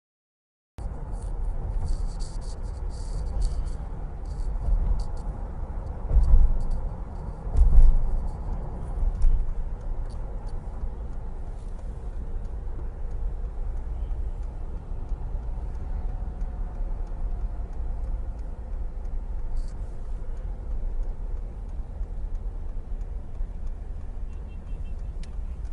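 Wind rumbling and buffeting on the microphone ahead of an approaching dust storm, with road traffic beneath. The strongest gusts come about six and eight seconds in.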